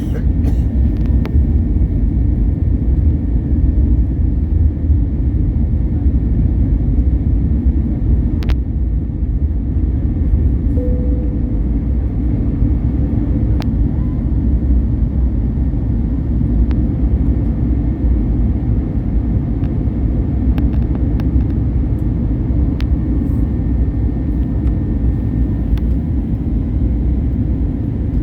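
Steady low roar of an airliner's engines and rushing air, heard inside the cabin, with a few faint clicks.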